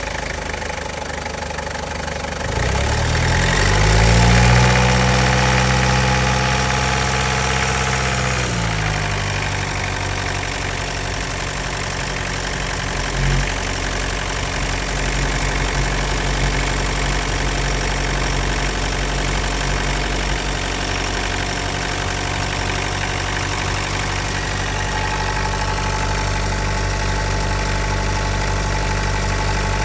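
Toyota Prado's 3-litre four-cylinder turbo diesel engine running just after start-up. About two seconds in the engine speed rises and holds for several seconds, then drops back near eight seconds in to a steady idle. There is a brief thump about thirteen seconds in.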